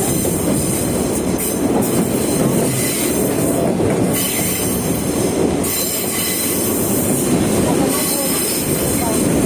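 Steady running noise of the Sagano Romantic Train heard from aboard: wheels rolling on the rails under the moving carriage.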